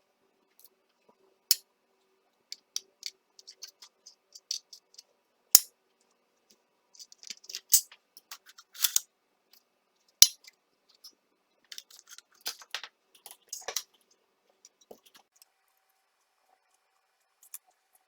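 Irregular sharp clicks and short scrapes of small metal parts being handled during work on a Makita DUM604 cordless grass shear's cutting blades. The two loudest clicks come about a third of the way in and just past halfway.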